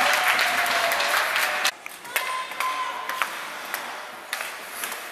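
Spectators in an ice rink clapping and cheering after a penalty shot, with voices among them. About two seconds in the sound cuts off abruptly and gives way to quieter rink noise with a few scattered knocks.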